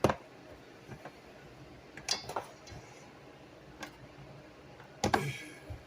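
A few scattered light clicks and taps of measuring spoons and spice containers being handled, the sharpest right at the start and another cluster about five seconds in.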